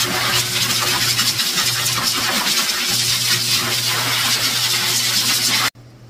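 High-velocity pet dryer blowing air through its hose nozzle: a loud, steady rush of air over a constant motor hum. It cuts off abruptly near the end.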